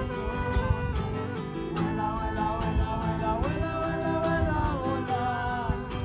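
A song: a voice singing a melody over plucked acoustic guitar accompaniment.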